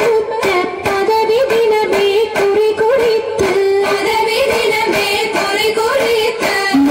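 Oppana song: a high voice sings a wavering Mappila-style melody over a steady, sharp clapping beat about two to three times a second.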